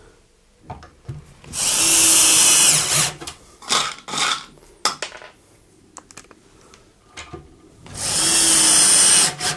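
Cordless drill-driver driving 4x16 screws to fix plastic adjustable feet to an MDF cabinet base: two runs of about a second and a half each, about six seconds apart, with handling clicks in between.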